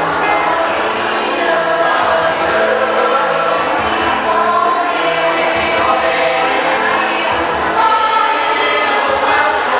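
A choir singing in several parts, holding long notes.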